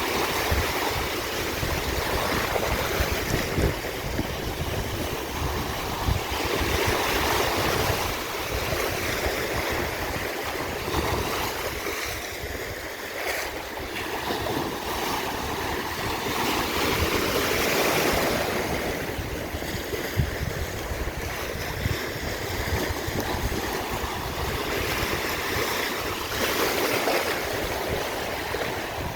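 Ocean surf: waves washing in a continuous noisy wash that swells and eases again every several seconds.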